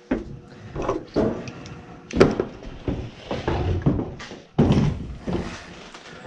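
A series of irregular knocks, clunks and rustles, as of tools and equipment being handled, with the sharpest knock about two seconds in.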